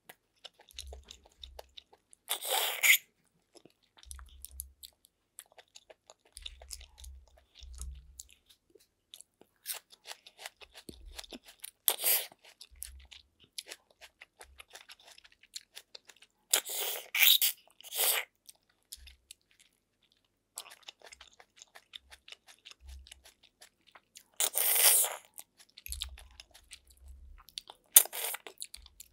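Close-miked eating of snails in coconut sauce: sharp sucking slurps as the meat is drawn out of the shells, five or six over the stretch, with quieter chewing and wet mouth clicks between them and a few soft low thuds.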